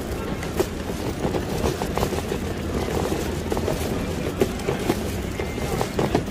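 Busy city street ambience: a steady low rumble of traffic with scattered short clicks, and faint music mixed in.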